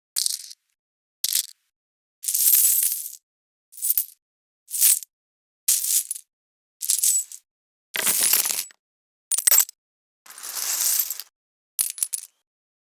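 Coins falling and clinking in about a dozen separate short spills, each cut off into silence before the next. Most are bright and high; one about eight seconds in is fuller and reaches lower.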